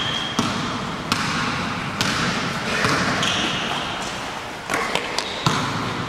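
Basketballs bouncing on an indoor court floor in a sports hall, a handful of sharp thuds at irregular intervals over the general noise of play.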